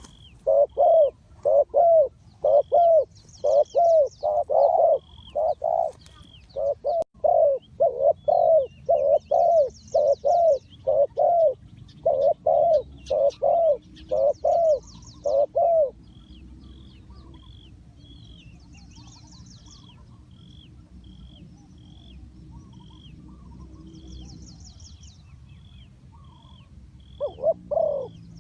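Spotted dove cooing: a long run of loud, low coo notes in quick succession, which stops about halfway through, with two more coos near the end. Small birds chirp at a steady pace in the background, with short high trills every few seconds.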